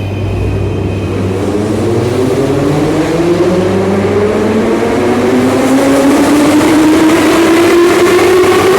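Moscow Metro train's traction motors whining as it pulls away and accelerates, the whine rising steadily in pitch with several tones together over a running rumble, growing louder throughout.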